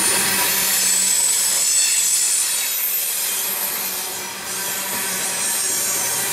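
Refrigerated boxcars of a freight train rolling past close by: steel wheels on the rails give a steady grinding, rubbing rush with faint thin high-pitched squealing tones over it, dipping briefly about four seconds in.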